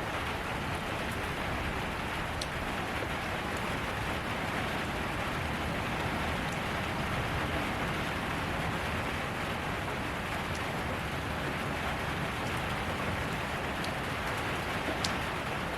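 Steady rain falling on surfaces, a constant even hiss with the odd individual drop ticking out above it, the sharpest shortly before the end.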